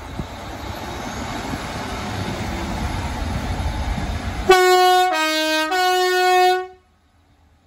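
Class 150 diesel multiple unit running in with a rising rumble, then sounding its two-tone horn about four and a half seconds in: high, low, then high again, for about two seconds. The sound cuts off suddenly.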